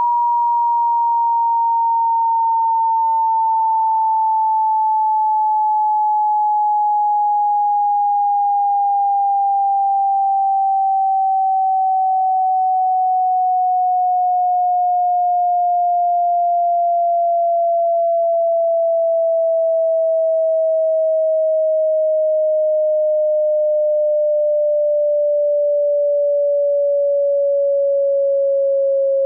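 A pure sine-wave hearing-test tone, part of a high-to-low frequency sweep. It glides slowly and evenly down in pitch through the middle range, falling by nearly an octave, at an unchanging level.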